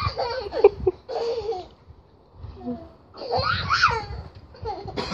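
Laughter in several short bursts, high-pitched.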